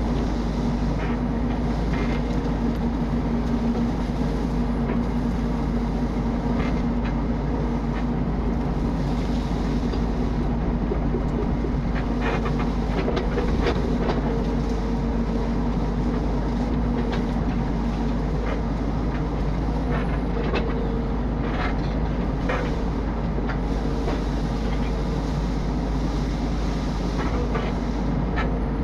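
Mini excavator's diesel engine running steadily under load, with scattered knocks and clatter from the machine at work.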